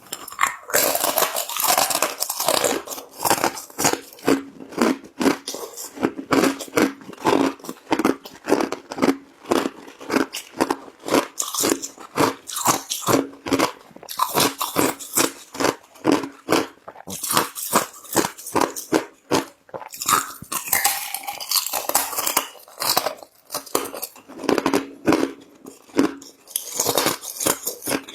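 Ice being crunched between the teeth and chewed, a rapid run of sharp, irregular cracks several times a second.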